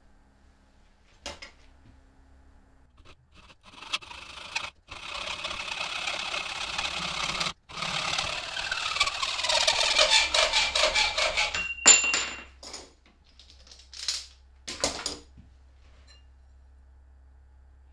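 A hand saw cutting through an aluminium rail clamped to a workbench: fast rasping strokes with a ringing tone from the metal that slowly falls in pitch, stopping briefly twice. About twelve seconds in, a loud sharp metallic clink as the cut-off piece comes free, followed by a few knocks.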